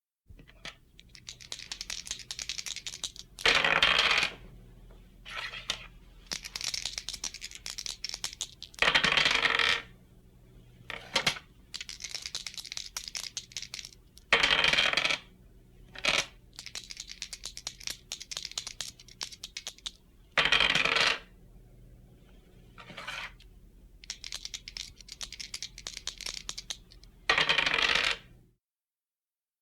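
Dice being shaken, a rapid rattle of small clicks lasting a few seconds, each ending in a louder short clatter as the dice are thrown; the cycle repeats five times.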